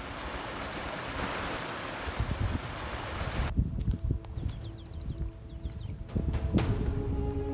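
A small rocky mountain stream splashing over stones, cut off sharply about three and a half seconds in. Then wind rumbling on the microphone, with a bird giving two quick runs of high, falling chirps.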